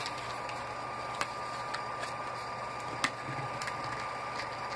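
A trading-card blister pack of cardboard and plastic being bent and pried at by hand: a few sharp clicks and crinkles, the loudest about a second in and about three seconds in, over a steady hiss with a faint high hum.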